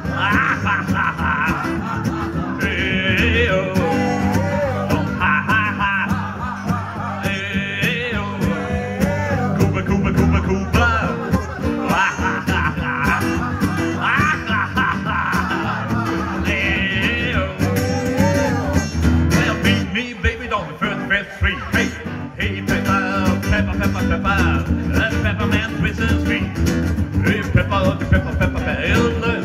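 Live music from a duo: a man singing with a strummed steel-string acoustic guitar, joined by an archtop electric guitar played through a small amplifier.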